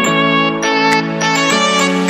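Background music: a melodic instrumental track with sustained notes changing about every half second.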